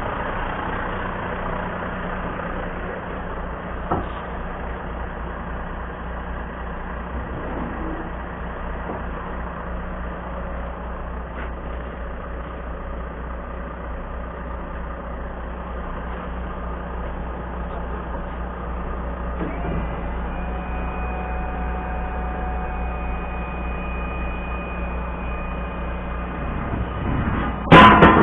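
Volvo FMX 440's 13-litre six-cylinder diesel idling steadily, a low even hum. A single knock comes about four seconds in, and a loud clattering knock right at the end.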